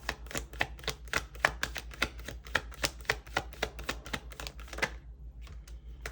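Tarot cards being shuffled by hand: a quick, even run of card slaps, about six a second, that stops about five seconds in, leaving a few faint clicks.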